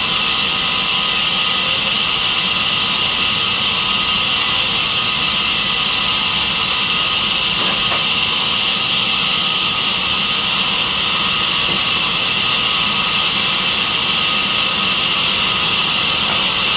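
Sawmill band saw (aara machine) running steadily, a continuous high hiss that holds one level throughout.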